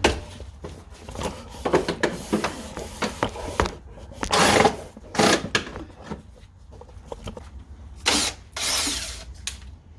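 Tools working on a car's front end: scattered metal clanks and knocks, with two short bursts of a power driver or drill, about four and a half and nine seconds in.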